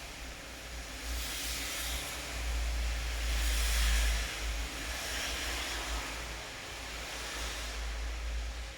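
Steady rain hiss with louder whooshing swells, the biggest about four seconds in, over a deep low rumble.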